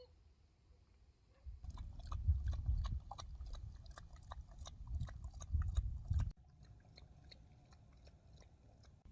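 A dog eating from a bowl: a quick run of clicking, crunching bites with a low rumble under it, stopping abruptly about six seconds in, then a few faint ticks.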